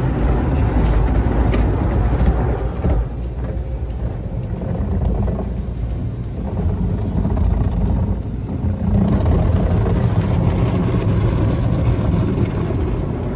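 Automatic car wash machinery working over the car, heard from inside the cabin: a steady low rumble with spraying and washing noise. The hissing eases about three seconds in and picks up again about nine seconds in.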